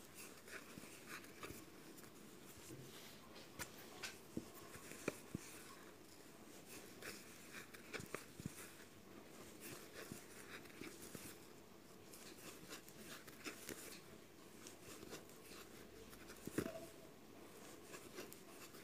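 Faint scratching and clicking of a crochet hook pulling yarn through stitches, handled close to the microphone, with a few sharper clicks.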